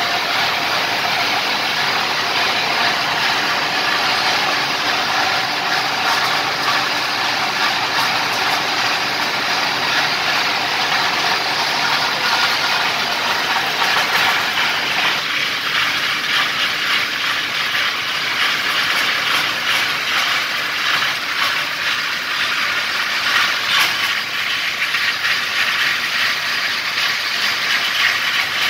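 Tape plant line running: a loud, steady mechanical noise from its rollers and drives, with fine rapid clicking from the tape winders coming through in the second half.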